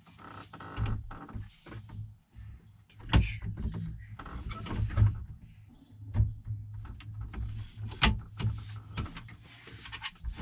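Small metal and plastic parts clicking, knocking and rattling as they are handled and fitted to a tractor's steering column. The sharpest knocks come about three seconds in and about eight seconds in.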